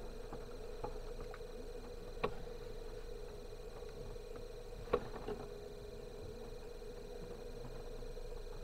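Car driving slowly over a rutted, broken dirt road, heard from inside through a dashcam: a steady hum with two sharp knocks as the car jolts over the ruts, one about two seconds in and a louder one about five seconds in, with a few faint ticks between.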